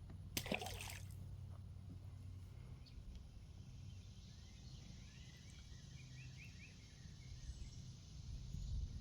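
Outdoor pond-bank ambience with a steady low rumble, a short rustling burst about half a second in, and a run of faint short chirps from a bird about five to eight seconds in.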